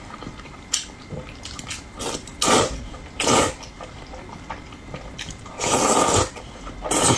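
A person eating knife-cut noodles close to the microphone: several short eating noises, the longest about six seconds in.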